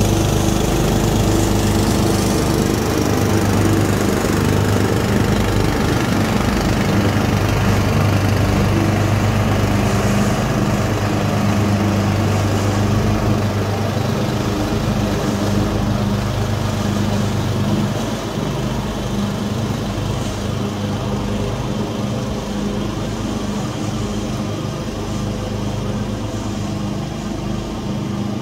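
The small gasoline engines of a 12.5 hp Craftsman riding mower and a 13.5 hp Swisher 60-inch pull-behind mower running together while mowing long grass, a steady engine drone. It grows a little quieter about two-thirds of the way in as the rig moves off.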